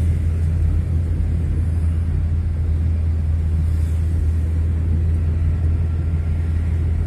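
Steady low rumble of a car driving, heard from inside the cabin: engine and road noise with no change in pace.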